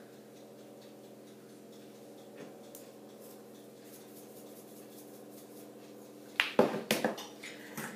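Low steady hum, then about six and a half seconds in a quick cluster of sharp clicks and clinks from a kitchen utensil at a glass mixing bowl while the egg, cream and Roquefort mixture is being seasoned.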